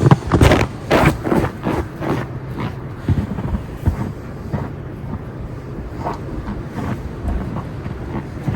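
Blizzard wind gusting and buffeting the microphone, a steady low rumble with irregular loud gusts, the strongest in the first second and a half.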